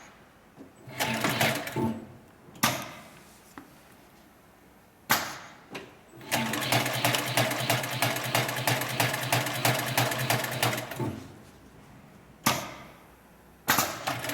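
204-370 heavy-duty upholstery sewing machine stitching: a short burst, a few sharp clacks, then a steady run of about five seconds with a rapid, even stitch rhythm, and another clack near the end.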